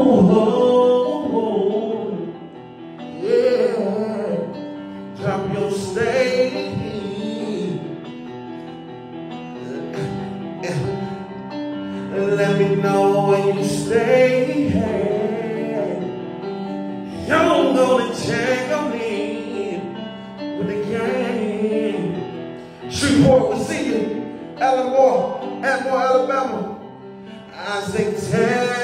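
A man singing over backing music, with long held and sliding notes.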